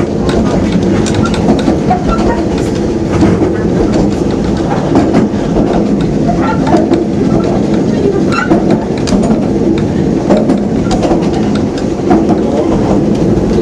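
Steam railway carriage running along the track, heard from on board: a steady, loud rumble with frequent irregular clicks and rattles from the wheels and coach.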